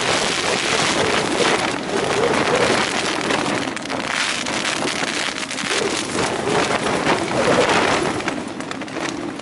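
Gale-force wind gusting against a Tarptent Scarp 1 tent, heard from inside: a continuous rush of wind with the tent fabric flapping and shaking, swelling and easing over a few seconds.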